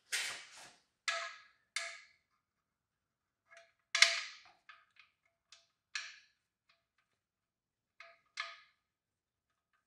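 Irregular short metallic clicks and clinks, about a dozen, several with a brief ring, from the oil drain bolt with its fresh gasket being handled and started into the oil pan.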